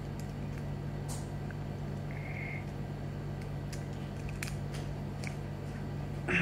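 Faint, scattered clicks of small plastic Kinder Surprise toy pieces being handled and snapped together by hand, over a steady low hum.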